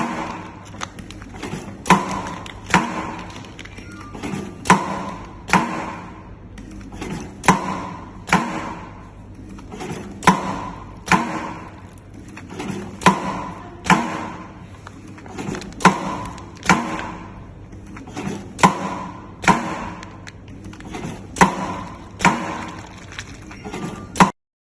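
Automatic film bag-making machine cycling: its seal-and-cut bar knocks down about once a second in a steady rhythm, each stroke followed by a short rush, over a constant motor hum and faint high whine. The sound cuts off abruptly near the end.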